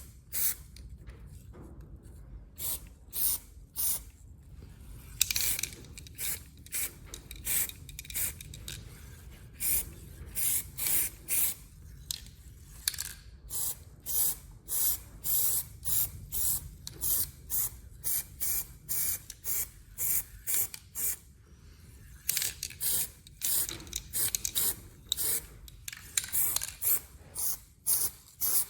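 Aerosol can of Hammerite paint spraying in many short hissing bursts, one after another with brief pauses between, a few held a little longer.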